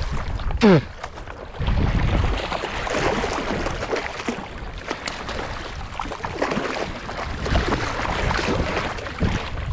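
Hooked bluefish thrashing and splashing at the water's surface as it is reeled in to the bank, with wind rumbling on the microphone. A short, loud falling squeal comes about a second in.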